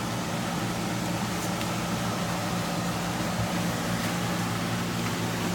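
A steady mechanical hum with a whir of moving air, like a fan or blower running without change.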